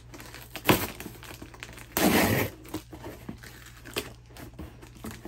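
Packing tape being peeled and ripped off a cardboard shipping box, with crinkling of tape and cardboard, a loud rip about two seconds in, and a couple of sharp snaps.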